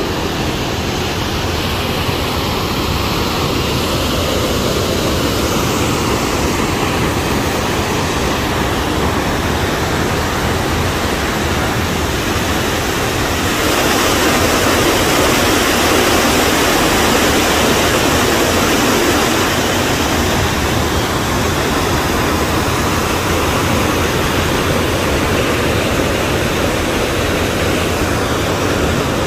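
Waterfall plunging into a narrow rock gorge: a loud, steady rush of falling water, a little louder about halfway through.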